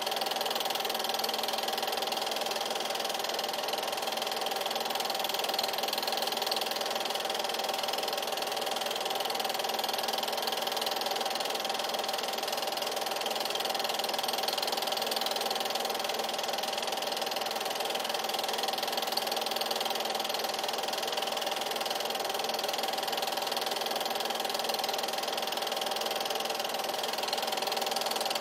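8mm film projector running: a steady mechanical whir of its motor and film transport.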